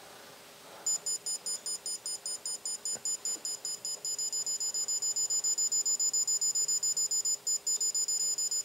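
CPS BlackMax digital torque wrench beeping, a high-pitched pulsing alert about five times a second. It starts about a second in, and from about halfway the beeps get louder and longer with only short gaps. The pulsing signals that the set torque has been reached on the flare nut.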